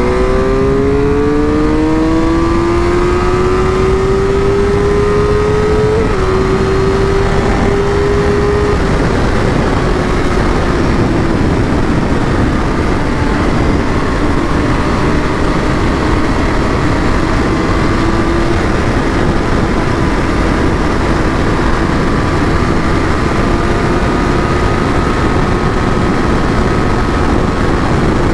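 Suzuki GSX-R 1000's inline-four engine pulling hard under full throttle at speed, its note climbing for about six seconds, dipping briefly, then holding a high steady pitch that eases slightly and creeps back up near the end, heard over heavy wind rush.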